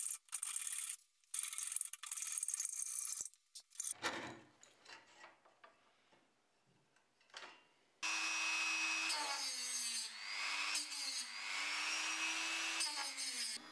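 A hacksaw cuts through thin aluminium plate in back-and-forth strokes for the first few seconds, followed by a few seconds of light handling. From about eight seconds in, a Dremel rotary tool with a cutting disc runs with a steady high whine, its pitch dipping repeatedly as the disc bites into the aluminium edge.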